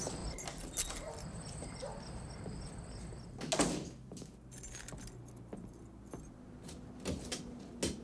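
Keys jangling and clicking in the hand, with one louder clatter a little past three seconds in, then two knocks near the end as a refrigerator door is pulled open.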